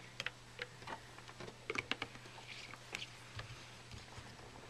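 Light, irregular clicks and taps of a plastic bottle and its screw cap being handled and screwed shut.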